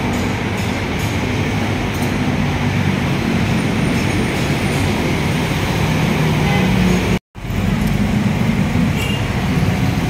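Steady hum of congested city street traffic, with engines of cars, motorcycles, tricycles and a bus running together. The sound cuts out for a moment about seven seconds in.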